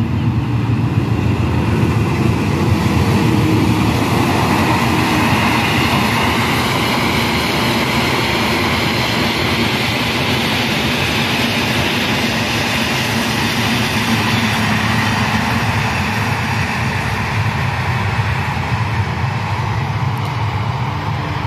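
Diesel-hauled passenger train, the KA Ranggajati, passing at a distance. The locomotive engine and the coaches' wheels on the rails make a steady, continuous noise with no horn and no sharp knocks.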